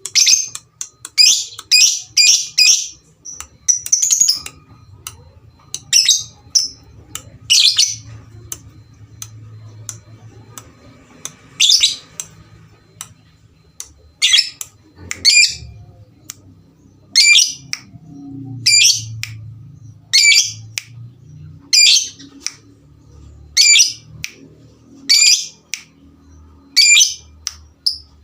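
Lovebirds calling: short, sharp, high-pitched shrieks repeated about once a second, in runs broken by a couple of short pauses.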